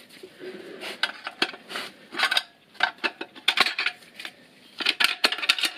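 Tapered steel snap ring and a screwdriver clinking and scraping against the JATCO JR710E transmission case as the ring is worked out of its groove: a run of irregular light metallic clicks.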